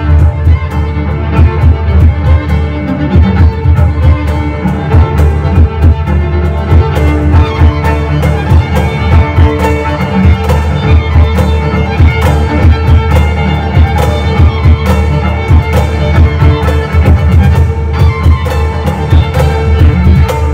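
Live instrumental trio of violin, cello and cajón: the violin carries the melody over a bowed cello line, with quick, steady hand strokes on the cajón driving the rhythm.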